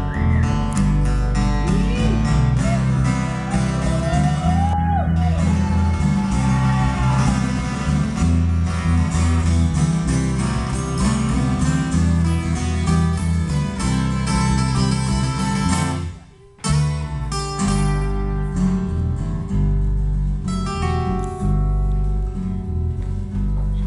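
Acoustic guitars playing an instrumental passage: strummed chords under a lead line whose notes bend up and down in the first several seconds. The sound cuts out for a moment about two-thirds of the way through.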